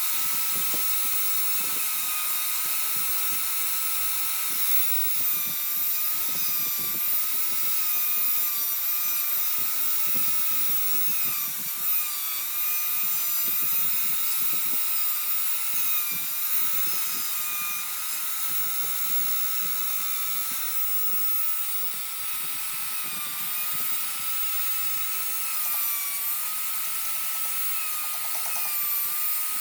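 High-pitched whine of a small high-speed electric power tool running continuously, its pitch dipping slightly now and then as if under load.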